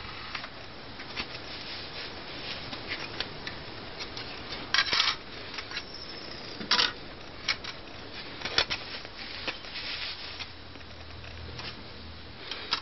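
Handling noise of a DVD being swapped in an open DVD player: a disc rubbing and scraping as it is handled, with scattered sharp clicks and knocks. The loudest clicks come about five and seven seconds in.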